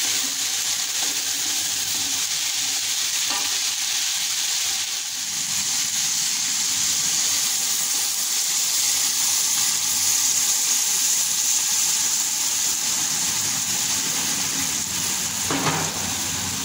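Chickpeas, kidney beans and chopped greens sizzling in oil in a pot while a spatula stirs them. Partway through, water is poured in and the pot keeps sizzling and bubbling, with a light knock near the end.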